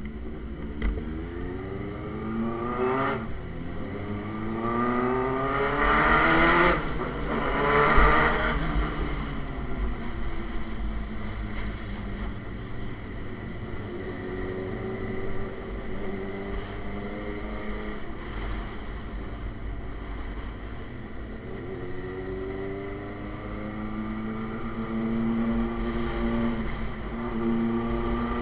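Suzuki GSX-R sport bike engine through an SC Project aftermarket exhaust, pulling hard through several gears early on, the pitch climbing and dropping back at each shift. It then runs more steadily and climbs again near the end, with wind rushing underneath.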